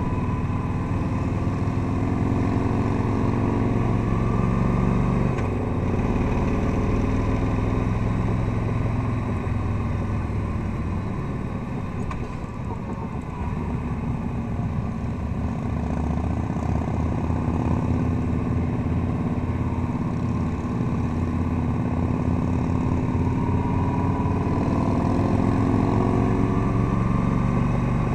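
Touring motorcycle engine running under way, its pitch rising and falling as the bike works through the curves. It eases off about halfway through, then pulls again.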